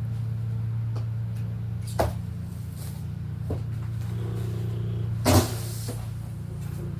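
Knocks and bumps from handling a boxed appliance over a steady low hum: a sharp knock about two seconds in and a louder bump with a brief rustle a little after five seconds.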